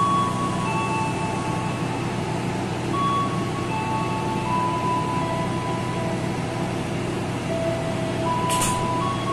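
Passenger train's steady running hum and rumble, with a slow tune of single held notes playing over it. A short hiss comes near the end.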